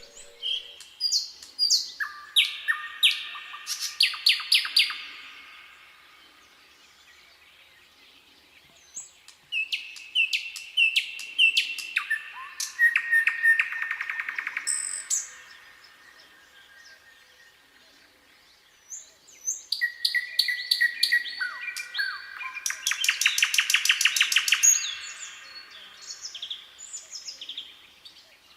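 A nightingale singing in three phrases separated by pauses of a few seconds. Each phrase runs from clear whistled notes and slurs into a loud, fast, rattling trill.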